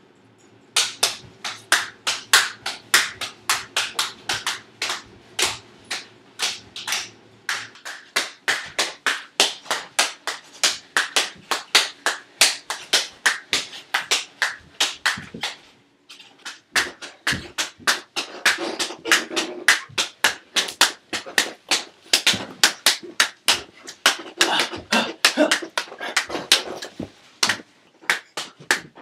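A penny being struck back and forth across a tabletop in a fast rally of penny pong: a rapid run of sharp clicks and taps, about four a second, with a brief lull about halfway through.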